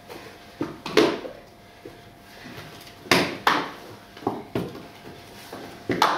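Shoes clacking on a hard floor as they are handled, knocked down and set down: irregular sharp knocks, with the loudest pair about three seconds in.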